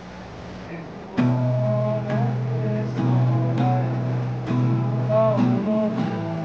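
Acoustic guitar strummed: chords start about a second in, with a new strum roughly every second and the notes ringing on between them.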